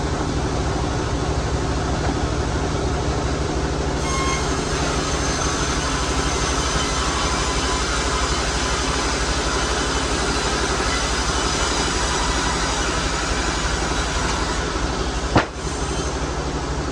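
Sawmill machinery running steadily with a low hum. About four seconds in, a higher hiss and faint whines join it, and a single sharp knock comes near the end.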